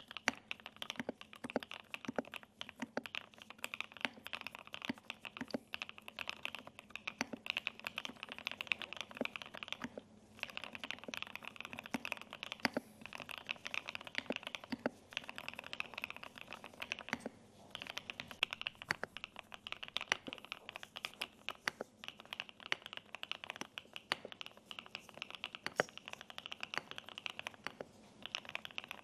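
Continuous fast typing on a Velocifire OE93 mechanical keyboard: a dense run of key clacks, broken by brief pauses about ten, seventeen and twenty-eight seconds in.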